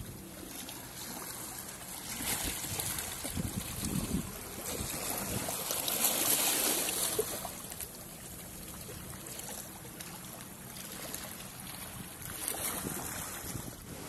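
Small Black Sea waves lapping and washing against shoreline rocks, with wind rumbling on the microphone. It swells louder several times, the loudest wash about halfway through.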